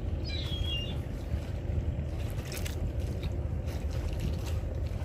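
Wind buffeting the microphone, a steady low rumble, with a few faint light knocks from a small wooden boat on the water. A brief high twitter of short falling notes comes about half a second in.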